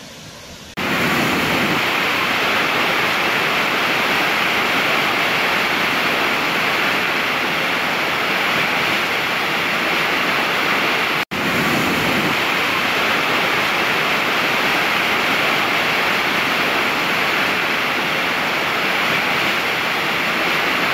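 Huge waterfall, the falling water a loud steady rush that starts abruptly about a second in, after a quieter first second. It cuts out for an instant near the middle, then carries on unchanged.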